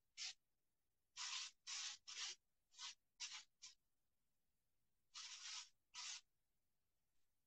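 Faint, short rustling strokes, about nine in a row with a pause in the middle, from hands working sectioned hair with foil and a tint brush while applying highlight colour.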